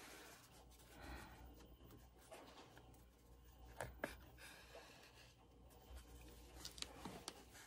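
Faint rustling and crinkling of a crumpled piece of craft material handled between the fingers during hand stitching, with a few small sharp clicks about four seconds in and again near the end.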